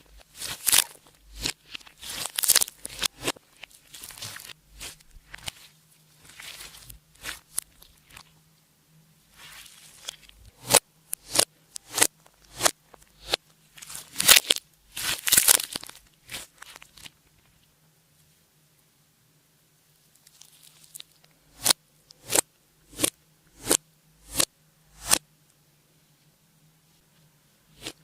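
Clear slime being worked by hand, giving irregular sticky clicks and pops of trapped air, with a few seconds' pause past the middle and a run of clicks about two a second before it stops near the end.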